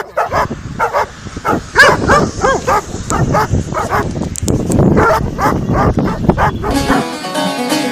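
Dogs barking and yelping in quick succession. About a second before the end, plucked-string music comes in.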